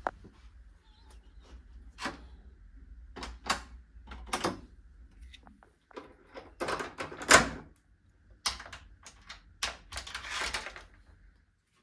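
Hotel room door hardware being worked: the lever handle and thumb-turn lock click and knock, the loudest knock coming about seven seconds in. Near the end the metal security chain rattles as it slides into its slot.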